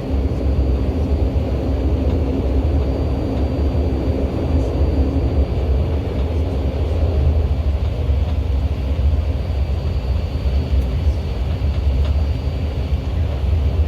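Steady, loud low drone of an airliner's engines heard inside the passenger cabin.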